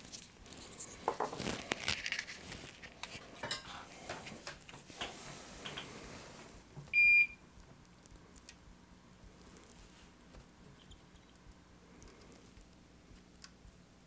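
Small tools and parts clattering and rustling on a repair bench as they are picked up and handled, with scattered clicks. About seven seconds in, a single short electronic beep sounds, the loudest sound here. After that only faint clicks are left.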